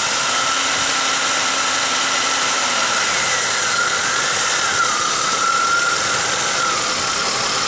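1995 Pontiac Grand Am's 3.1-litre V6 running over a steady hiss, with a high whine that wavers up and down in pitch from about three seconds in. A loose vacuum T-fitting on the upper intake plenum is being moved, letting unmetered air leak in: a vacuum leak that raises the idle speed, much like a bad throttle position sensor.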